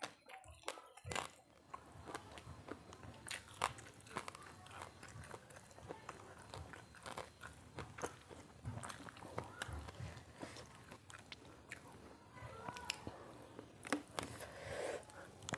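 A person chewing and biting into crunchy food, with many irregular crunches and crackles.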